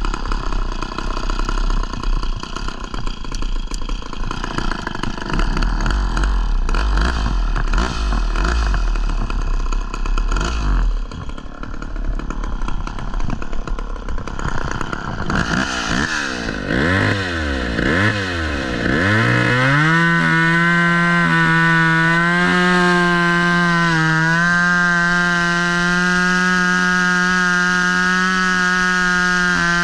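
Two-stroke chainsaw running unevenly at low speed with clatter, then revved up and down several times about halfway through. From about two-thirds of the way in it holds a steady high speed.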